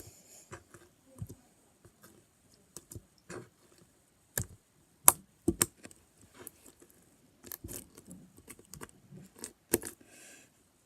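Irregular sharp clicks and taps of small hard objects being handled, the loudest about halfway through, with a brief soft rustle near the end.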